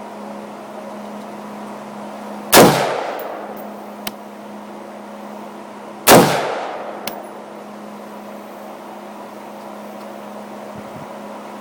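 Two rifle shots from an AR-15, about three and a half seconds apart, each with a long echoing tail.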